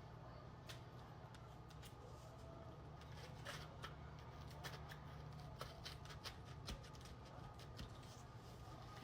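Utility knife blade cutting and scraping through foam board, in faint, irregular scratches and clicks.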